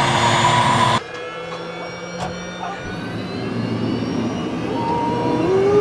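Mi-2 helicopter's twin turboshaft engines running with the rotor turning: loud outside for about a second, then it drops abruptly to a quieter, muffled run heard from inside the cabin, with a whine rising in pitch near the end.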